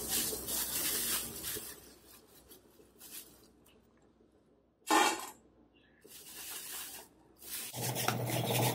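A handful of dry kibble dropped into a stainless steel dog bowl, a short, loud clatter about five seconds in, after rustling at the start. Near the end a Pungsan dog starts eating from the bowl, kibble rattling against the metal.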